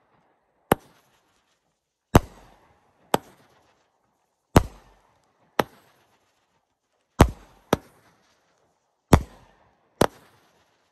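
Consumer firework cake (Top Gun 'Racing Champion') firing single shots about every two and a half seconds. Each shot is a deep launch thump followed, under a second later, by the shell's sharp burst bang overhead.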